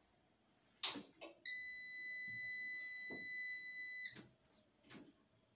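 A switch clicks, then a 5 kW solar inverter's buzzer gives one steady high-pitched beep lasting about two and a half seconds as the inverter powers up on its 48 V battery supply, cut off with a click.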